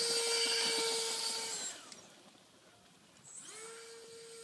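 Electric ducted fan on an RC off-road buggy, whining at a steady high pitch. About a second and a half in it spins down, its pitch falling away. After a quiet second or so it spools back up to a steady whine.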